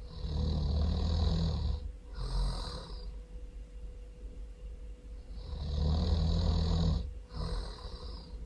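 A person snoring really loud: twice, a long low rumbling snore on the breath in, followed by a shorter, breathier snore on the breath out.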